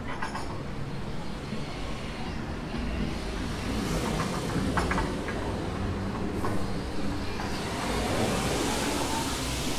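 City street traffic: steady road noise, with a vehicle passing and swelling louder over the last few seconds.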